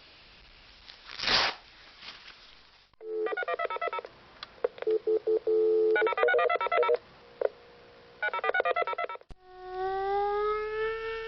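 Touch-tone telephone being dialed: a steady dial tone broken by three quick runs of keypad beeps, after a short rustle about a second in. Near the end a click is followed by a siren winding up, rising in pitch.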